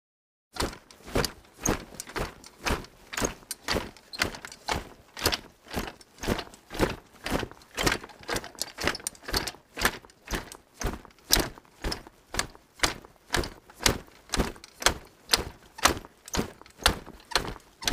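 A fast, slightly uneven run of knocks or thuds, about two to three a second, starting about half a second in.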